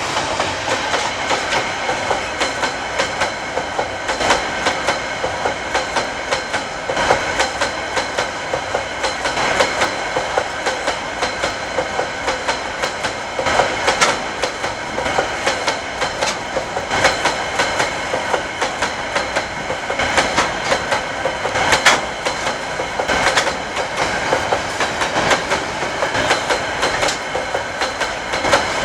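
Empty freight wagons rolling past, their wheels clacking over the rail joints in a steady repeating rhythm over the rumble of the running train.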